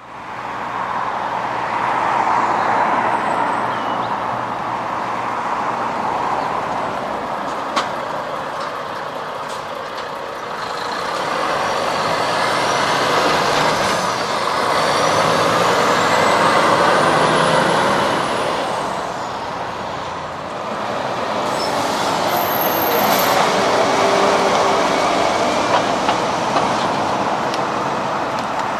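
Heavy lorries driving past at low speed, their engines and tyres swelling and fading in turn over steady traffic noise. There is a single sharp click about eight seconds in, and a faint high whine rises and falls in the middle.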